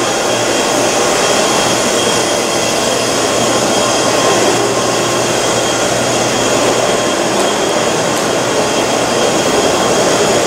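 Steady, loud running noise of a subway train in motion: a continuous rumble and hiss with no letup.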